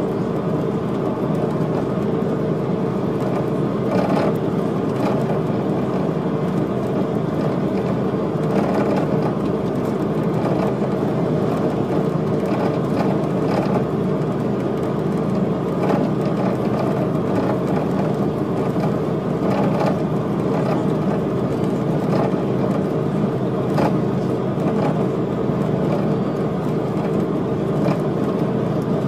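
Steady engine and road noise inside the passenger cabin of a moving VDL Bova coach, a constant low hum with a few faint knocks.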